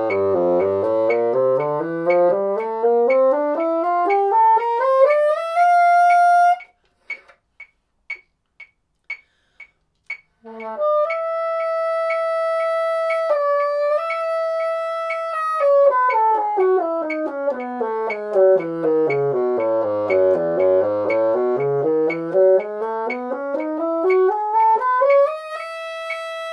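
Moosmann bassoon playing slurred sixteenth-note major scales over a ticking metronome. A fast run climbs to a held high F and stops about six seconds in, and for a few seconds only the metronome ticks. Then an E major scale starts on a held high E, runs down three octaves and back up to end on the high E, with the high E and F a little sketchy.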